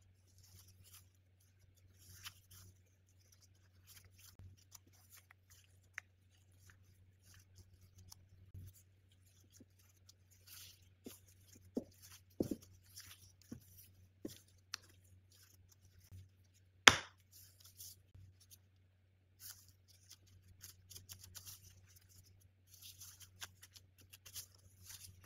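Disposable plastic gloves crinkling and rustling as hands fold and roll out pastry dough on a pastry mat, with soft knocks of a plastic rolling pin. One sharp knock about two-thirds of the way through is the loudest sound.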